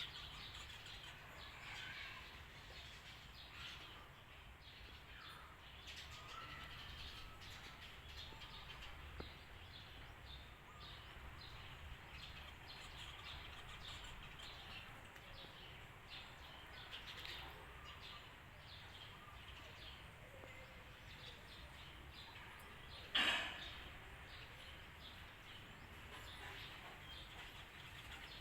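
Many small birds chirping in short, faint calls over a steady low background rumble. Near the end there is one short, loud sound, much louder than the chirping.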